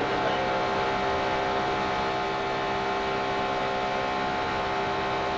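NASCAR Nationwide Series stock car V8 engines running at full throttle in a restrictor-plate draft, a steady, unchanging drone of several engine notes.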